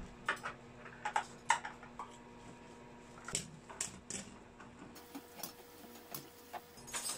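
Plastic sofa legs and furniture parts being handled against a sofa-bed frame: scattered light clicks and knocks, with a plastic parts bag crinkling near the end.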